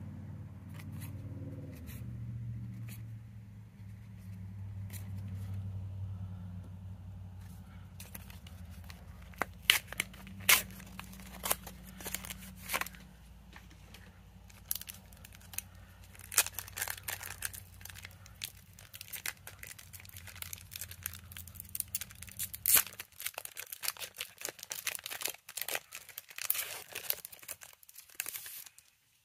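Foil wrapper of a Pokémon trading-card booster pack being handled, crinkled and torn open by hand, in irregular sharp crackles that begin about a quarter of the way in and stop just before the end. A low steady hum underneath cuts off shortly before the end.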